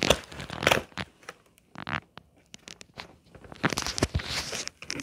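Cardboard box flap and plastic-wrapped contents rustling and crinkling as hands rummage in a craft-kit box, in irregular bursts, the longest near the end.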